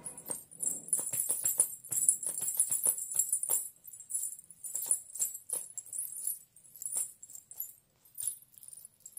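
Small silver ghungroo bells on anklets and bridal toe rings jingling as the feet move. The jingles come thick and fast for the first three seconds or so, then thin out into scattered shakes.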